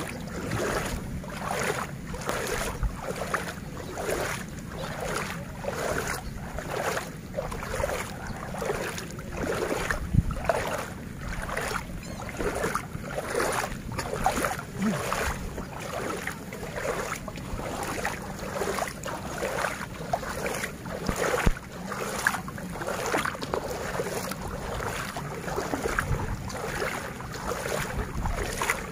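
Legs wading through knee-deep floodwater: a regular slosh and swish of water with each step, about one a second.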